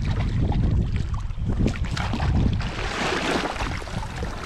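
Wind buffeting the microphone, with a hooked brown trout splashing at the lake surface as it is played in toward the net.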